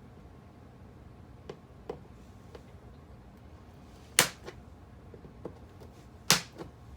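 Model railroad rail being cut through with cutters: a few light clicks, then two loud sharp snaps about two seconds apart, each followed by a softer click.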